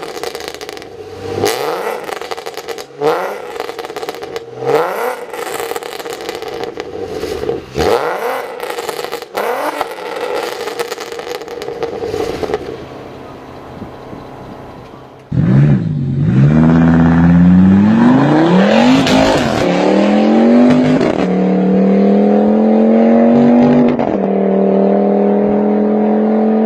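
Modified Volkswagen Golf engine revved in a series of short, sharp blips, with exhaust pops and crackles between them. After a brief lull, a much louder hard acceleration follows: the engine note climbs, then drops back at each of several gear changes.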